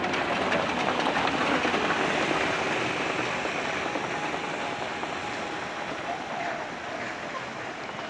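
A small flatbed utility truck passes close by and drives away over paving stones, rattling and clattering. It is loudest about a second or two in and slowly fades as it moves off.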